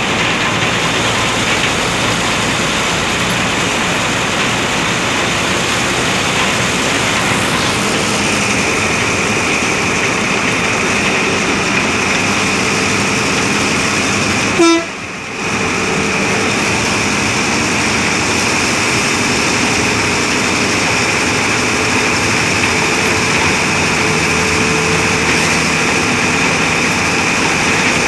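Bus diesel engine running and the body rumbling as the bus drives along, heard from inside the driver's cab, with a steady whine joining in about a third of the way through. About halfway there is a brief click and a short drop in the sound.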